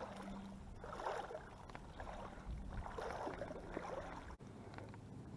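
Lake water sloshing and swishing around a person's legs as he wades through knee-deep water, swelling with each stride about every two seconds.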